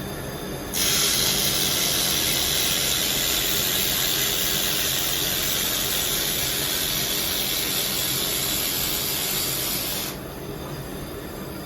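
Handheld IPG LightWELD laser welder with wire feed running a weld bead: a steady hiss starts just under a second in, holds for about nine seconds and cuts off suddenly when the trigger is released. The wire feed drives the torch along the seam at its own pace, so the sound stays even throughout.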